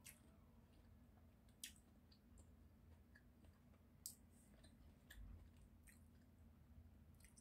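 Near silence broken by a few faint sharp clicks a second or two apart, mouth sounds of eating sushi and wooden chopsticks being handled, with the clearest click about four seconds in as the chopsticks are picked up.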